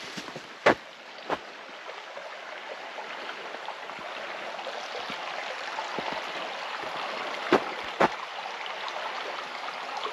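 Shallow creek water flowing steadily over rocks, with four sharp knocks: two about a second in and two near the end.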